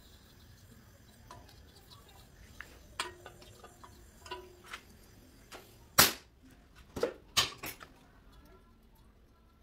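Gas torch hissing faintly as it heats an aluminium joint for brazing, with scattered sharp metallic clicks and knocks. The loudest knocks come about six seconds in and twice about a second later.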